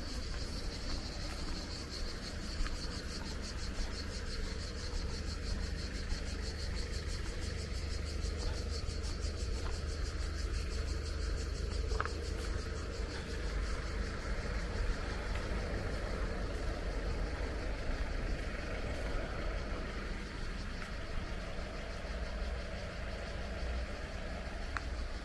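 Insects chirping in a fast, even pulsing trill that fades after about ten seconds, over a low steady rumble.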